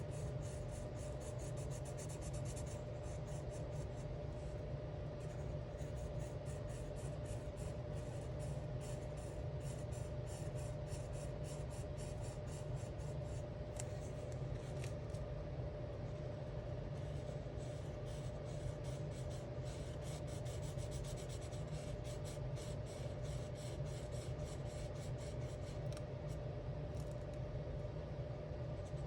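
Alcohol markers stroked quickly back and forth on coloring book paper, many short scratchy strokes in rapid succession with a few brief pauses. Underneath runs a steady low hum and a faint steady tone.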